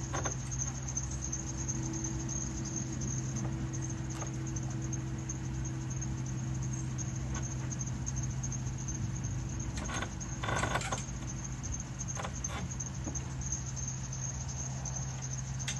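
An engine running steadily, a low even hum. There are a few faint clicks and a brief rattle about ten seconds in.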